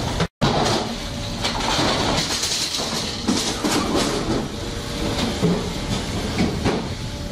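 Processing-line machinery running: a conveyor and packing machine clattering steadily over a constant hiss.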